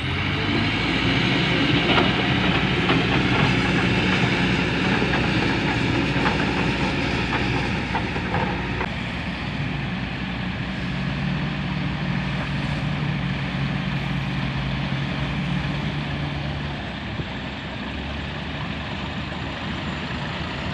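Heavy diesel construction machinery working. The engine picks up load right at the start and runs hard with clanks and knocks for the first eight seconds or so, then settles into a steadier, lower running.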